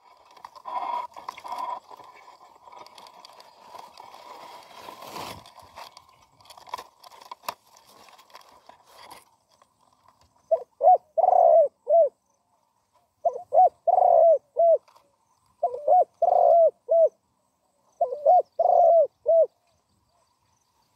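Spotted dove cooing: four phrases of several deep coos each, starting about halfway through and repeating every couple of seconds. Before them, faint rustling with a few sharp knocks.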